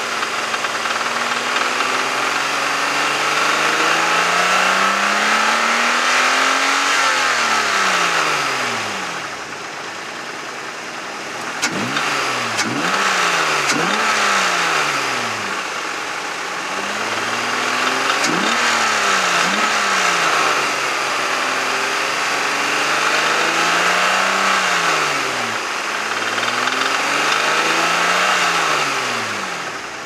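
Mazda 2.5-litre KL V6 engine being revved from idle again and again. The revs climb slowly, are held and fall back several times, with a run of quick sharp blips in the middle. The engine has a knock that the owner suspects is a bad valve or a rod bearing slowly going bad.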